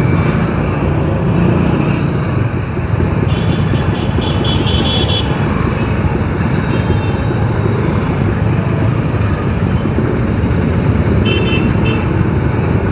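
Riding a TVS Apache motorcycle in city traffic: steady wind and road noise over the engine, with vehicle horns honking twice, about three to five seconds in and again near the end.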